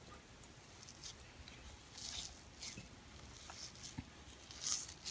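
Hands squeezing and rubbing a crumbly mixture of ground wheat flatbread, ghee and jaggery in a glass bowl: faint, grainy rustles in several short bouts, the loudest near the end.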